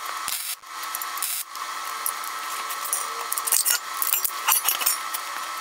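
MIG welder tack-welding steel square tubing: the arc's crackling hiss breaks off briefly twice in the first second and a half, then runs on, with sharper crackles toward the end.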